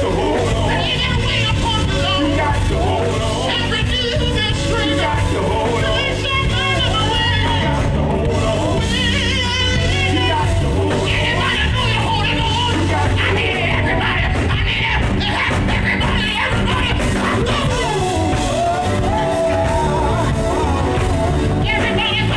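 Live gospel band music with a singer's wavering, drawn-out vocal lines over it, loud and continuous.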